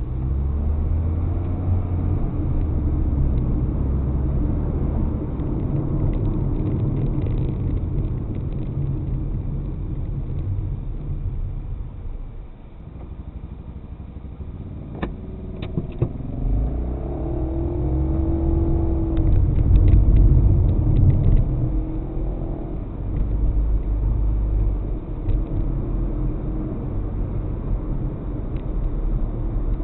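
Car driving, with steady low road and engine rumble. The rumble eases about twelve seconds in, a few sharp clicks follow, then the engine note rises as the car speeds up again, loudest a little past the middle.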